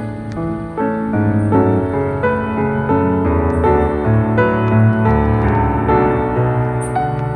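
Background piano music: a solo piano playing a melody over low chords.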